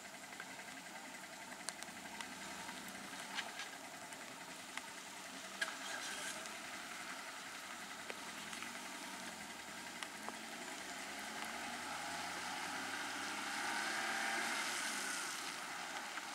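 Stopped vehicles' engines idling, a steady low hum with a few scattered sharp clicks, growing louder for a few seconds near the end.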